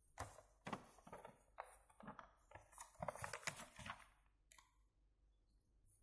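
Paper rustling and crinkling as a sheet is handled, in short irregular rustles that die down after about four seconds.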